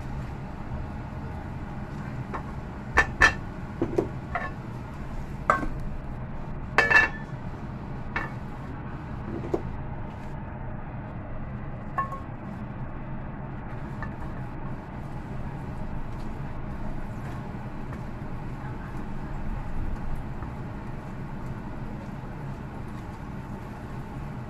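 Cookware clinking and knocking as scrambled egg is scraped from a frying pan into a stainless steel bowl: a run of sharp clinks in the first half, loudest about seven seconds in, then a few lighter taps, over a steady low hum.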